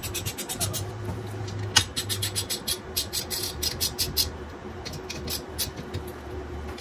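Ratchet wrench clicking and metal parts knocking while bolts are turned on an electric dirt bike's swingarm and motor mount, as a rapid, irregular run of sharp clicks over a faint steady hum.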